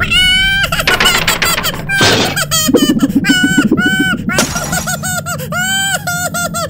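High-pitched, wordless cartoon character voices in quick repeated syllables, with a lower voice joining briefly about two and a half seconds in.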